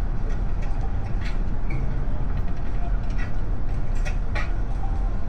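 Steady low road and tyre rumble inside an AITO M9's cabin on the move, with a few short ticks about a second in and again near the end.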